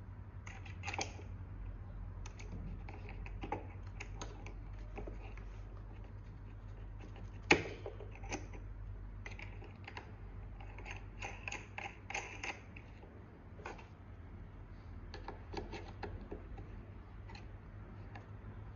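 Scattered small clicks and scratches of a propeller and aluminium prop nut being handled and threaded onto a brushless motor shaft by hand, with one sharper click about seven and a half seconds in.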